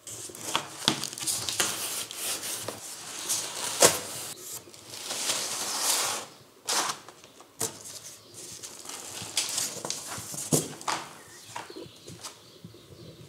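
Cardboard shipping box being opened by hand: the cardboard flaps rustle and scrape, with scattered knocks and thuds. A longer scraping swell comes about five to six seconds in.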